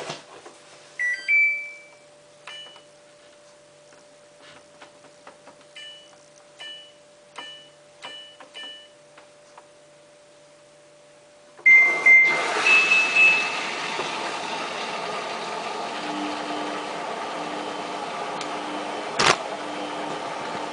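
Samsung WF8804RPA washing machine's control panel beeping as buttons are pressed: a few rising two-note beeps, then a quick run of five short beeps. About twelve seconds in a higher start tone sounds, and water begins rushing steadily into the machine, with one sharp click near the end.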